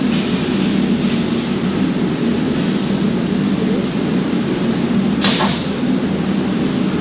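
Steady loud drone of machinery in a steel fabrication shop, with one short sharp hiss-like burst about five seconds in.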